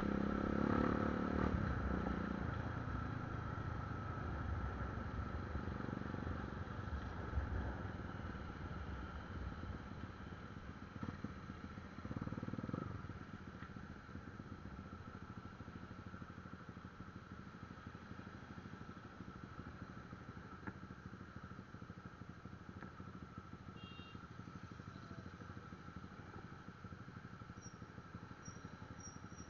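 Motorcycle engine and traffic noise, loudest in the first couple of seconds as the bike rides and slows, then a quieter steady idle while it waits at a red light. A thin steady whine runs underneath.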